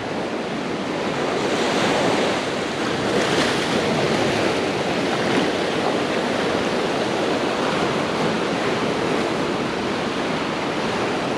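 Pacific surf breaking and washing over a rocky shore, with wind buffeting the microphone. The rush of water swells a little a few seconds in, then holds steady.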